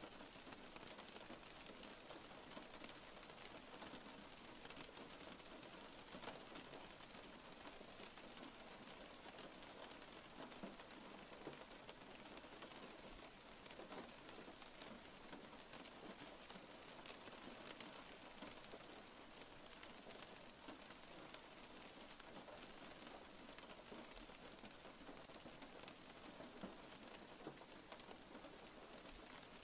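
Faint, steady rain: an even patter of many small drops.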